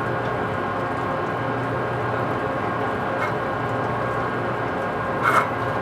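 Large metal lathe running steadily, turning a big pot-bearing part, with a low hum and a couple of held higher tones. A short burst of noise comes about five seconds in, with a fainter one a couple of seconds earlier.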